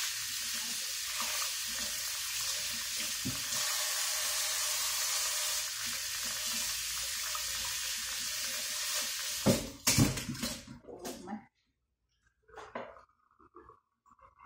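Tap water running steadily into a stainless steel sink as chicken pieces are rinsed under it. The water stops about two-thirds of the way through, with a few loud clatters and knocks in the sink, then only small handling knocks.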